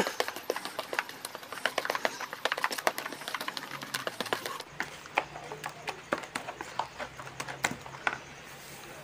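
White plastic rice paddle stirring thick, wet bait batter in a plastic bowl: a quick, irregular run of clacks and taps as the paddle knocks and scrapes against the bowl.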